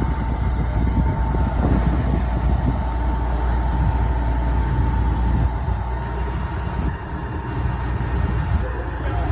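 A heavy engine on the crane barge runs steadily under load, a continuous low rumble with a thin steady whine above it.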